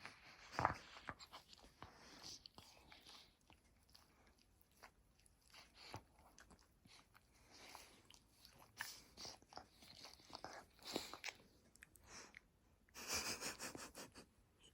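A dog waking up and making faint piggy noises: short snorts, snuffles and mouth clicks, with a louder run of snorting about 13 seconds in.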